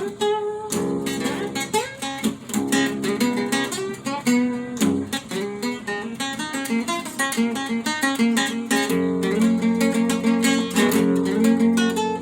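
Acoustic guitar playing an instrumental passage, quick plucked notes and strums with no singing.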